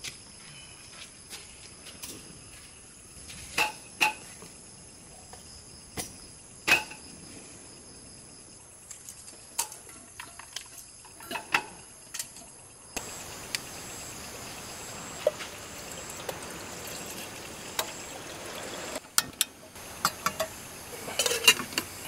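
Night crickets trilling steadily, with scattered sharp knocks and clatters of camp gear being handled on a metal table. About halfway through the background turns to an even hiss, and a quick cluster of clinks comes near the end.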